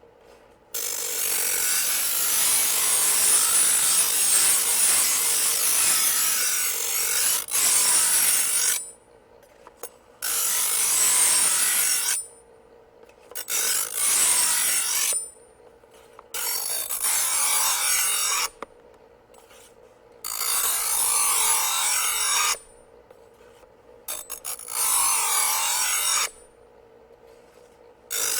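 Electric grinding wheel grinding in repeated passes. Each pass is a harsh, hissing grind: the first lasts about eight seconds, the later ones about two seconds each, with short pauses between. A faint steady hum from the running wheel carries on through the pauses.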